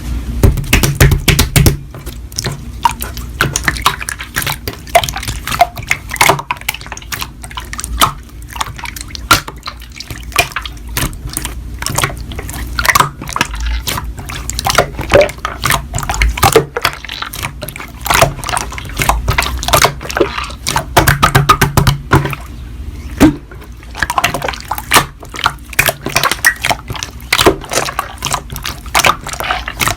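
Slime being squished and poked by hand: a steady stream of wet clicks, pops and squelches.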